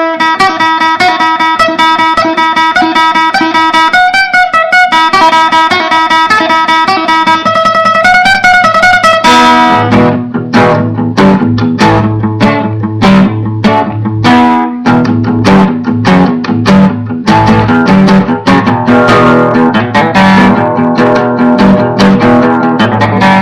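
Guitar improvisation: held melody notes with pitch bends for about the first nine seconds, then rapid strummed chords over low bass notes for the rest.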